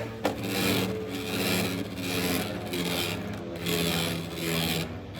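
Freshly launched Beyblade X spinning tops whirring and grinding around a plastic stadium: a steady spinning hum under a scraping rasp that swells and fades about once a second as the tops circle and rub.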